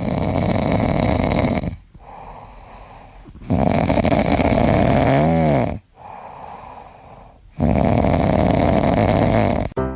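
An animal snoring: three long, loud snores about four seconds apart, with quieter breaths between them and a short whistle at the end of the second.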